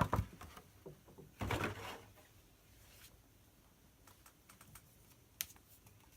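Light clicks and taps of cardboard and plastic packaging as trading cards are taken out of a Pokémon TCG box, with a short rustle about a second and a half in and a sharper click near the end.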